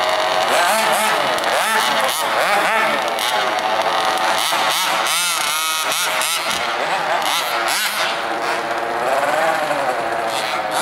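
Several radio-controlled cars' motors whining at high pitch, the pitch rising and falling quickly with throttle as they are driven around, overlapping one another.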